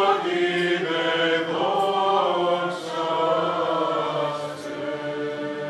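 Byzantine chant: voices singing together over a steady held low drone note, growing quieter near the end.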